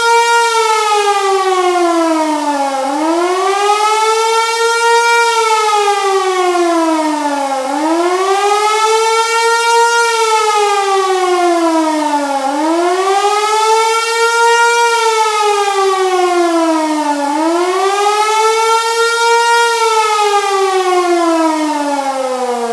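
Hörmann HLS 273 siren sounding the German population-warning signal: a loud wailing tone that rises and falls about every five seconds. Near the end it stops cycling and falls steadily as the siren winds down.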